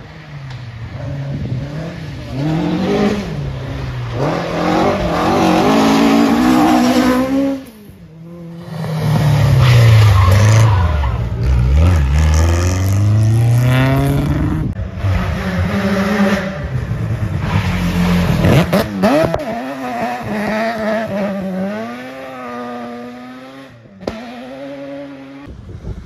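Rally car engines revving hard as cars pass one after another, the pitch climbing and dropping with each gear change and lift-off. The sound breaks off sharply a few times between passes.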